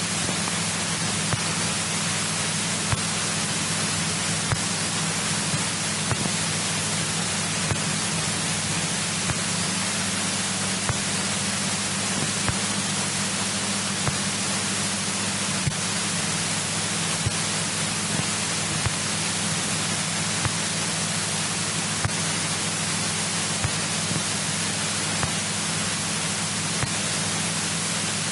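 Steady hiss of a headset intercom feed, with the low steady drone of the 1964 Cessna 172E Skyhawk's engine running underneath and faint ticks now and then.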